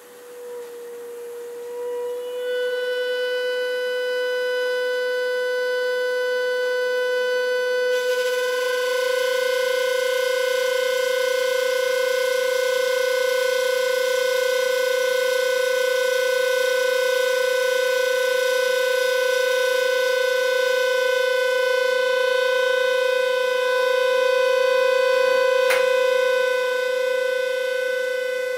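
Stainless steel stovetop whistling kettle on a gas burner whistling at the boil. It is one steady, siren-like tone that swells in over the first few seconds, grows fuller and louder about eight seconds in, then holds. There is a brief click near the end.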